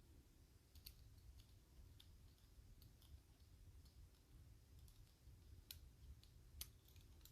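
Faint, scattered clicks of small metal lock parts and a tool as a slider is worked out of a disassembled EVVA 3KS lock, about one light tick a second, over a low hum.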